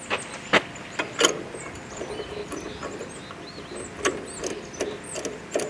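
Several sharp metallic clicks and knocks of an oil filter socket and wrench on a spin-on engine oil filter, the socket too large around to grip the filter. Birds chirp in the background.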